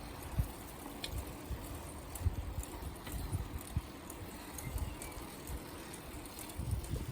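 Bicycle ride: wind on the microphone with the bike rolling along, irregular low rumbling thumps over a faint steady hiss.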